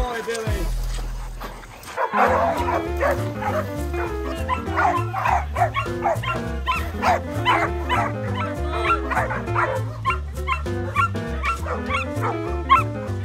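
Dogs barking and yipping repeatedly, several times a second, over background music with a steady beat that comes in about two seconds in.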